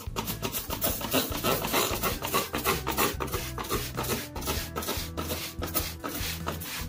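Trigger spray bottle of glass cleaner being squeezed again and again over a stone kitchen countertop: a quick run of short spray hisses.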